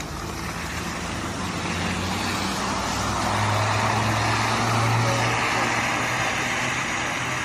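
City bus driving past, its engine hum and road noise growing louder to a peak about halfway through, then easing as it moves away.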